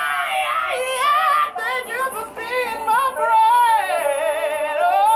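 High singing voice, female, holding and sliding between long notes with wide vibrato.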